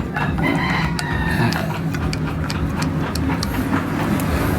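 A rooster crowing once, about half a second in, over a steady low engine or traffic rumble, with a few light clicks of metal parts being handled.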